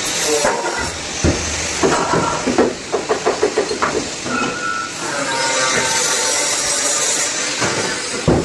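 Steady hiss of compressed air from powder-coating spray equipment, broken by a quick run of short knocks in the middle and a sharp one near the end.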